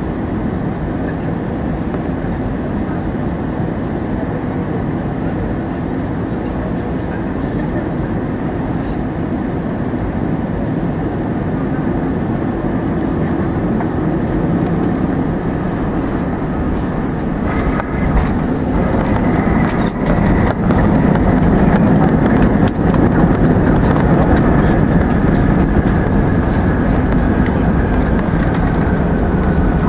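Jet airliner cabin noise on final approach, touching down a little over halfway through with a few jolts. After touchdown the engines run louder, with a slowly falling whine, as the aircraft rolls out and slows on the runway.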